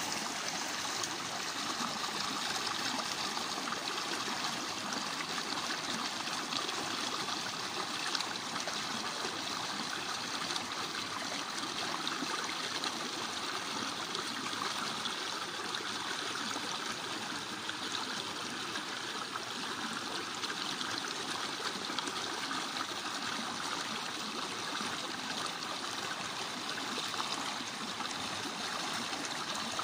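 Small waterfall: water splashing and running over rocks with a steady, even rush.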